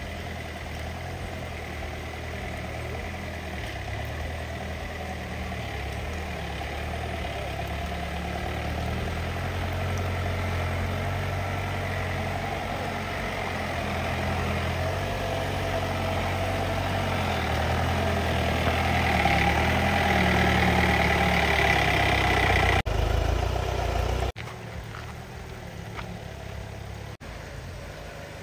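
An off-road vehicle's engine running steadily, growing gradually louder over about twenty seconds. It then cuts suddenly to a quieter level, with a couple of brief dropouts.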